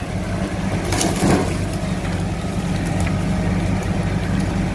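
Tractor engine running steadily, a low drone that grows louder at the start, with a brief rattle about a second in.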